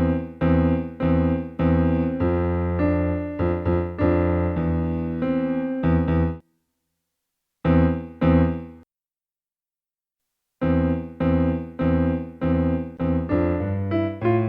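Electronic keyboard played with both hands, sounding notes and chords in a steady even rhythm. Playing breaks off about six seconds in, two chords come near eight seconds, and then it starts again about ten and a half seconds in.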